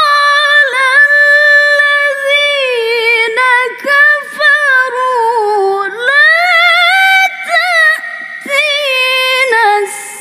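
A woman reciting the Quran in the melodic tilawah style, unaccompanied. Her single voice holds long, high, ornamented notes with quick trills, the melody sinking slowly and then rising again about six seconds in.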